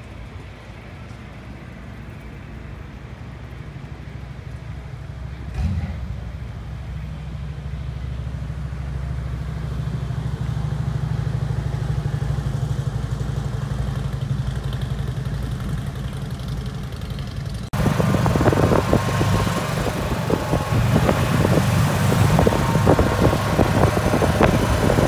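A low vehicle engine hum that grows louder over several seconds. After a sudden cut about two-thirds of the way in, it gives way to the louder, noisier, crackling sound of riding along in a golf cart.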